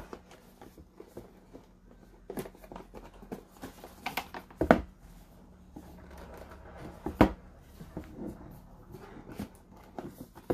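Cardboard box being handled and worked open on a wooden tabletop: about four sharp knocks, the loudest about halfway through, with faint scraping and rubbing between.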